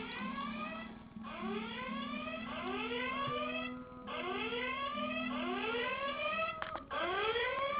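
Alarm clock going off: a repeating run of rising whooping tones, about four per run, with a short break every couple of seconds.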